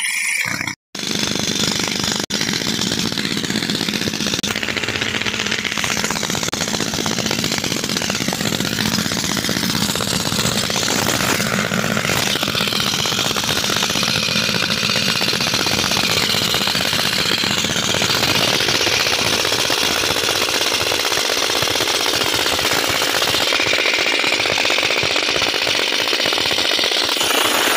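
Compressed-air rock drill hammering continuously as it bores a blast hole into sandstone: a loud, dense, rapid hammering, broken once by a momentary gap just under a second in.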